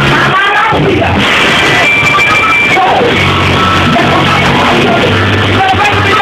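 Loud live band music playing steadily, with held low notes and sliding voice-like lines over them, heavily saturated as recorded.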